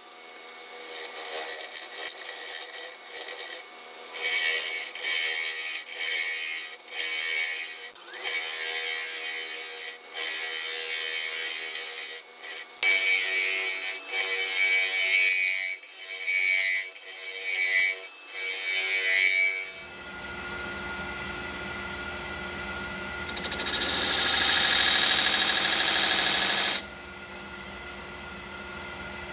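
A gouge cutting a spinning blank of epoxy resin and brown mallee burl on a wood lathe: repeated short passes of high hissing and scraping about once a second, then after a pause one longer, louder cut of about three seconds near the end.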